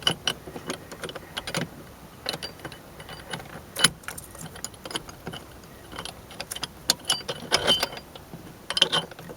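Irregular metallic clinks and taps as a steel steering wheel puller and its J hooks are handled and fitted onto the steering wheel. The sharpest clink comes about four seconds in, with a quick run of clinks near the end.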